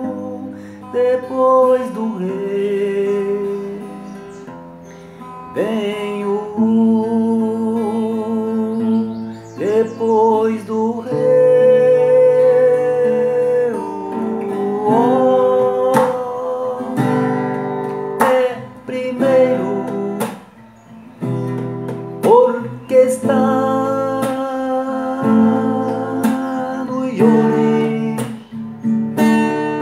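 Acoustic guitar strummed and plucked under a voice singing long held notes with a wavering vibrato, shifting from note to note without clear words.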